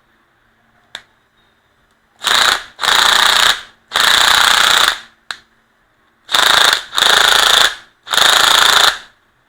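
EZ7206 cordless impact driver run in six short bursts of hammering, each half a second to a second long, its impact mechanism rattling hard.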